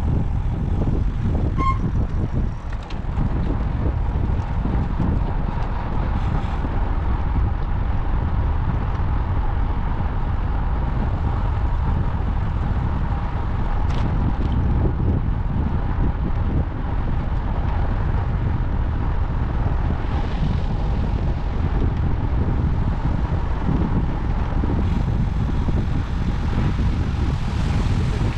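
Wind rushing over a GoPro's microphone while riding a road bike: a loud, steady low rumble, with a faint steady tone above it.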